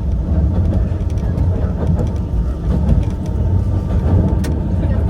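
Yokkaichi Asunarou Railway 260-series narrow-gauge electric train running, heard from the front of the car: a steady low rumble of wheels on rail and its nose-suspended traction motors.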